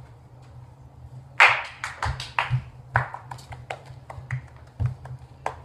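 Footsteps and knocks on a hard floor: one loud knock about a second and a half in, then irregular sharp taps and a few soft thuds.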